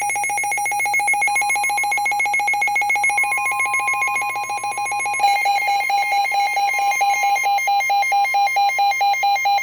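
Emergency Alert System alert tone: a loud electronic alarm of steady tones sounded together, pulsing on and off rapidly. The pulse pattern shifts about five seconds in.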